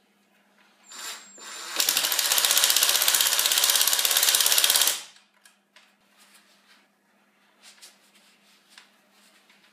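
Cordless impact driver driving a screw into a wooden chair arm: a short spin about a second in, then about three seconds of fast, even hammering as the screw is run home, stopping abruptly.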